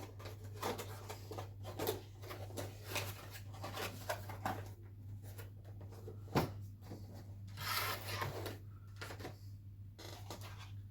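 Small rustles, scrapes and clicks of a boxed CPU's packaging being handled, with one sharp click about six seconds in, over a steady low hum.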